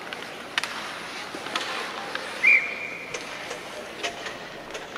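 Referee's whistle blown once about halfway through, one high steady blast lasting under a second, stopping play in an ice hockey game. A few sharp knocks of sticks and puck come before it.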